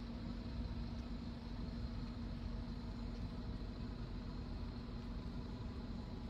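Steady outdoor city background: a low rumble of distant traffic, with a steady hum that stops shortly before the end.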